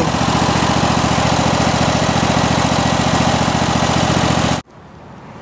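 Kohler Courage 25 hp engine on a Cub Cadet i1050 zero-turn mower running steadily, with an even firing rhythm. It cuts off suddenly about four and a half seconds in, leaving faint wind noise.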